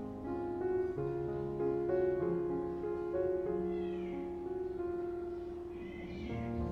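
Soft piano background music with a kitten mewing twice, once about four seconds in and again about six seconds in.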